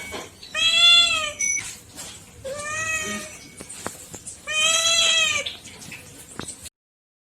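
Domestic cat meowing three times, each meow about a second long, rising then falling in pitch.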